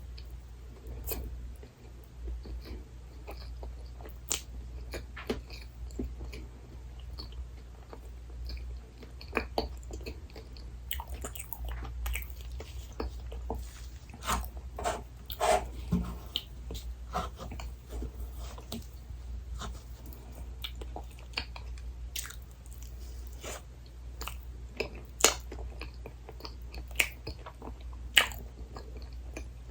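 Close-miked chewing of dessert, with many short, sharp wet mouth clicks and smacks scattered throughout, over a steady low hum.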